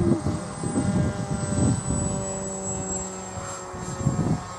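Electric Skywalker FPV model plane's motor and propeller droning steadily overhead as a set of held tones. Gusty low rumbles of wind buffet the microphone over it, strongest in the first two seconds and again briefly near the end.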